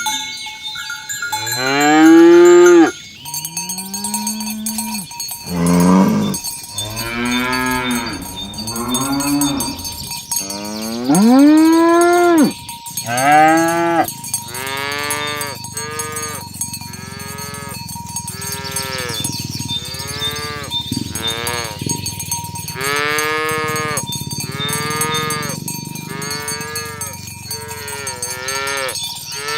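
Several cattle mooing one after another, with a string of long calls that rise and then fall in pitch, some overlapping. The loudest calls come near the start and about midway. A steady high ringing runs behind them.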